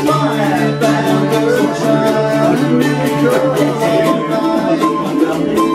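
Mandolin and acoustic guitar strummed together, playing a folk tune with a steady run of strums under ringing notes.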